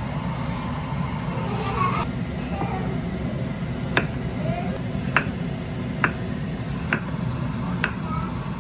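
Knife chopping on a cutting board: single sharp chops about one a second, starting about four seconds in, over a steady low hum.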